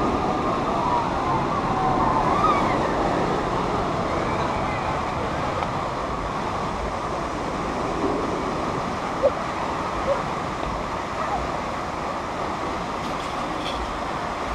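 White water rushing steadily down the concrete rapids channel of a river raft ride, a continuous churning noise.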